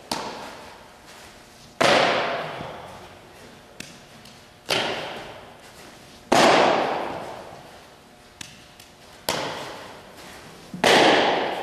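Softball smacking into leather fielding gloves during a ground-ball and throwing drill: six sharp pops, every other one louder, each ringing out with a long echo in a large indoor hall.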